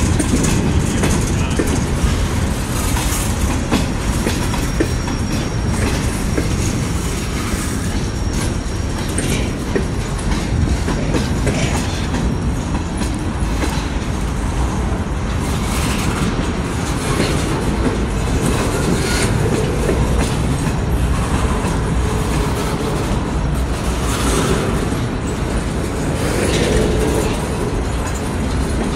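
Freight cars rolling past at close range: a steady rumble of steel wheels on rail, with clickety-clack of wheels over the rail joints.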